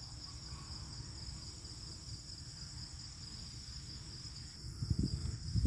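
Crickets chirping in a steady, high-pitched trill, with a low rumble underneath and a couple of brief low bumps near the end.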